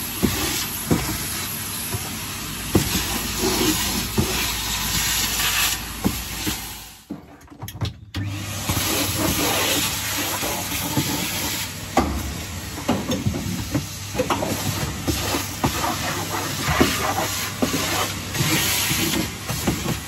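Numatic Henry canister vacuum cleaner running, its nozzle working over the van's carpet with scattered sharp clicks of sand and grit being sucked up the hose. The sound drops away briefly about seven seconds in, then resumes.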